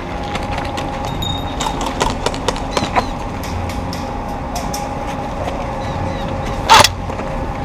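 Scattered sharp cracks of airsoft gunfire, an irregular cluster a couple of seconds in and one much louder crack near the end, over wind rumble on the microphone and a steady high hum.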